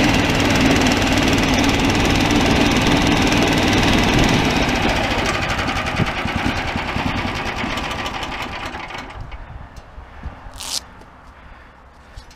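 Small gasoline engine of a SnowDog tracked snow machine running, then slowing for several seconds and dying away to quiet. Just past ten seconds there is one short high-pitched squeak.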